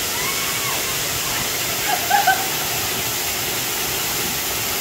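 Steady rushing hiss of a waterfall, falling water close by, with brief faint voices near the start and about two seconds in.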